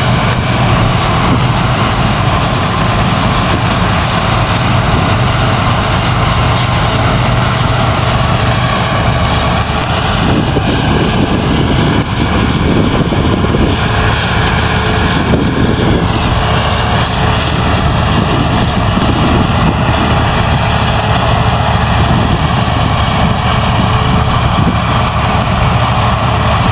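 New Holland TX66 combine harvester running steadily under load, a loud engine drone with a high whine that wavers in pitch partway through.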